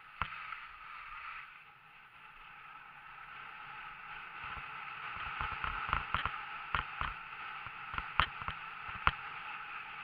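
Skis sliding and scraping over packed snow, a steady hiss that builds over the first few seconds, with a run of sharp clicks and knocks in the second half.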